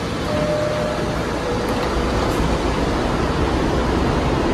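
R68 subway car's door chime, a high note followed by a lower one, as the doors close, over the steady rumble of the train. The low rumble then grows heavier as the train starts to move out.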